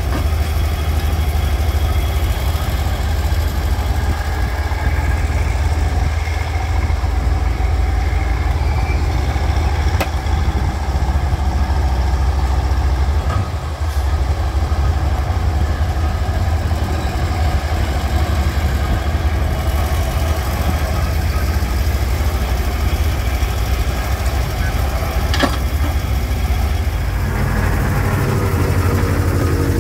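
Fuchs 301 cable excavator's engine running steadily while the machine digs sand and dumps its bucket; near the end it is heard from inside the cab.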